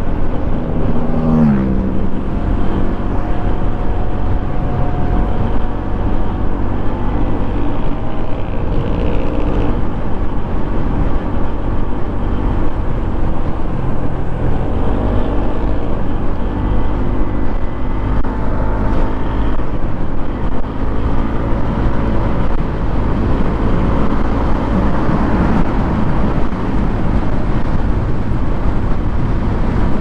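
Kymco KRV 180 scooter's single-cylinder engine running under way, its pitch falling about a second in and then rising and falling with the throttle, over a steady rush of wind and road noise.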